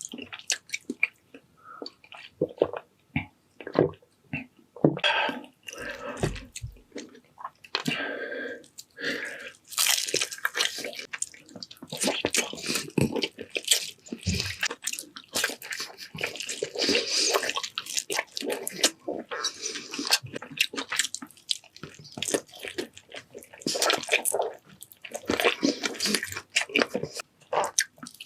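Close-miked eating sounds: wet chewing and mouth smacking made up of many small sharp clicks, with longer wet, noisy stretches of chewing or slurping.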